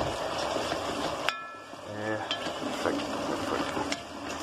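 A spoon stirring diced potatoes frying in butter in a pot, with a steady sizzle. The spoon knocks sharply against the pot once about a second in, and there are a few lighter clicks later.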